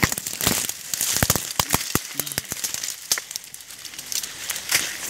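Dry leaf litter, grass and twigs crackling and rustling close to the microphone, in irregular sharp snaps, most of them in the first two seconds.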